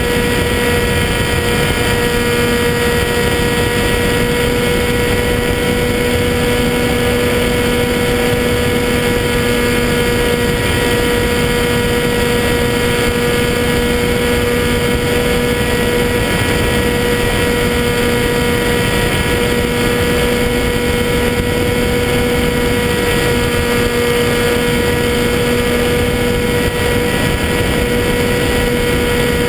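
Skywalker 1880 FPV plane's electric motor and propeller running at a steady cruise, heard from on board. It makes a constant whine over a rush of passing air.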